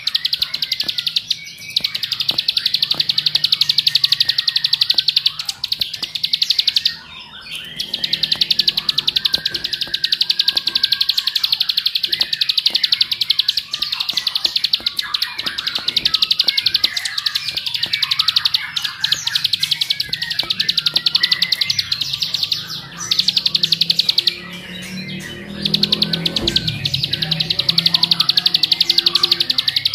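Plain prinia (ciblek sawah) singing its rapid 'ngebren' song: a fast, unbroken stream of high clicking notes. It pauses briefly about seven seconds in and again for a couple of seconds a few seconds before the end.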